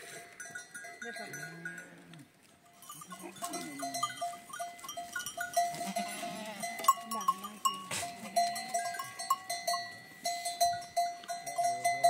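A flock of sheep and goats bleating, with small bells on the animals clinking in quick, uneven strokes. The clinking and calling grow busier after the first few seconds.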